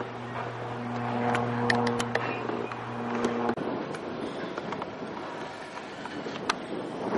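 Small propeller airplane passing overhead: a steady engine drone that cuts off abruptly about three and a half seconds in. It gives way to a steady rush of outdoor noise with a few faint clicks.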